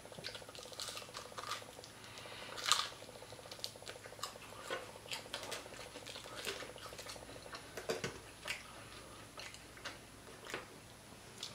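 Close-up eating sounds of whole fried croaker: chewing and mouth clicks with crackles of the crisp fried skin, and fingers picking meat off the bones. One louder crackle comes nearly three seconds in.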